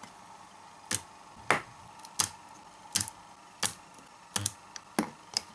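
Homemade spot welder firing repeatedly as its electrodes weld connecting strips onto the tops of 18650 lithium-ion cells. Each weld is a single sharp crack, about nine in all, coming at uneven intervals of half a second to a second.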